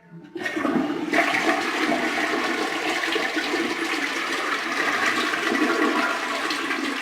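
Toilet flushing with the handle held down: a steady rush of water that builds during the first second and runs on evenly as the bowl empties.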